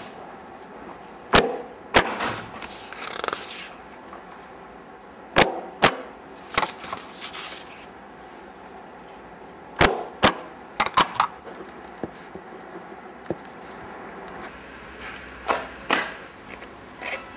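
Self-inking rubber stamp pressed down onto paper documents: about a dozen sharp clacks, mostly in quick pairs about half a second apart, with paper rustling between them.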